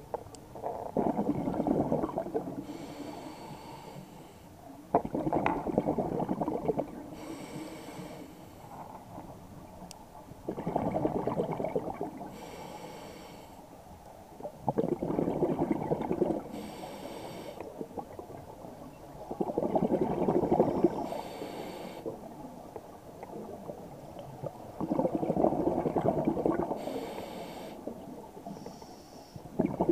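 A scuba diver breathing through an open-circuit regulator, heard underwater: a burst of exhaled bubbles rumbling for about two seconds every four to five seconds, about six breaths, each followed by a short thin hiss of the regulator.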